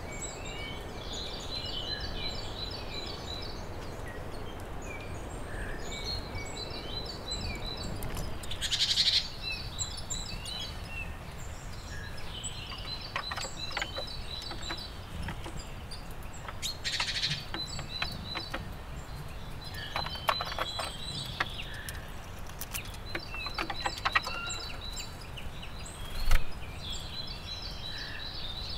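Small songbirds singing in forest, repeating short phrases of quick high notes. Scattered sharp clicks and taps are heard, and two brief louder rustling bursts come about a third and about three fifths of the way in.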